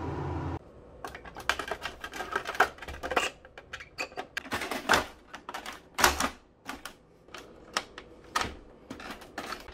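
Irregular plastic clicks, taps and knocks as the waste ink pad container and back cover are pressed back into an Epson EcoTank ET-2550 printer. A low steady hum cuts off about half a second in.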